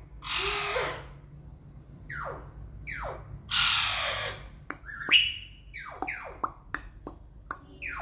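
Alexandrine parakeet squawking: harsh screeches, the longest just after the start and again about three and a half seconds in. Between them come shorter calls that drop in pitch and a few sharp clicks.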